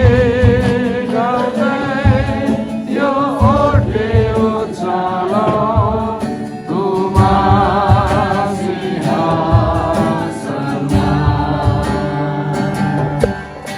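A Christian worship song: voices singing a melody with vibrato over instrumental backing with a regular low bass beat.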